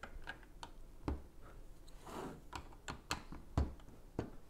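Plastic LEGO bricks clicking as they are handled and pressed into place on a baseplate: a string of sharp clicks, two of them with a dull thump.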